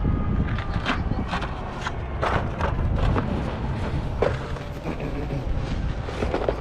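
Cardboard model-kit boxes being handled and shuffled in a cardboard box: a scatter of short knocks and rustles, over a steady low rumble.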